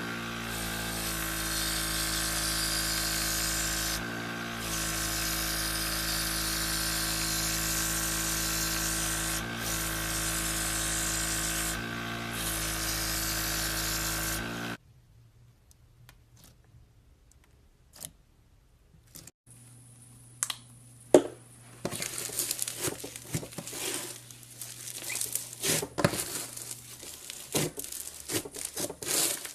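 A small electric motor runs steadily with a high hiss, dipping briefly a few times, and cuts off about halfway through. After a quiet stretch with a few clicks, irregular crinkling and handling noises start up.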